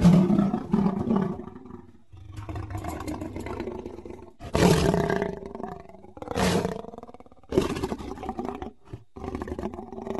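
Big-cat roars and growls presented as the extinct Mosbach lion: a loud roar right at the start, then a string of separate deep roars with short gaps, the loudest about four and a half and six and a half seconds in.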